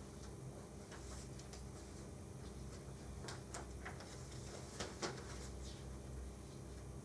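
Sheets of paper rustling and pages being turned, heard as scattered soft crackles, the sharpest about five seconds in, over a steady low room hum.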